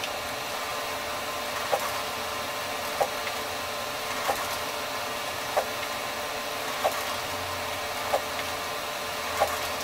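Encad NovaJet 750 wide-format inkjet printer running as it prints: a steady mechanical hum with a sharp click repeating about every one and a quarter seconds.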